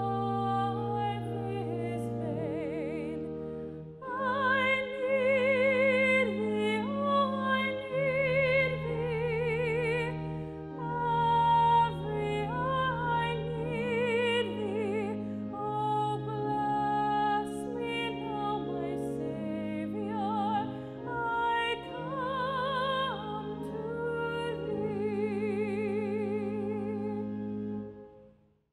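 A woman singing a solo in a classical style with wide vibrato, over held accompaniment chords. The music stops just before the end.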